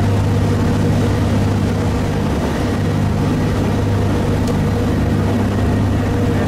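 Steady low drone of a cog railway railcar running, heard from inside the passenger cabin, with a constant deep hum and a few fainter steady tones above it.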